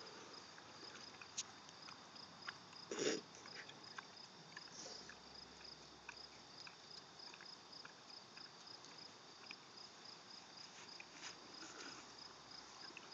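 An American Guinea Hog eating ice cream out of a cardboard box: faint chewing and smacking clicks, with a brief louder noise about three seconds in. Crickets chirp steadily in a fast even pulse behind it.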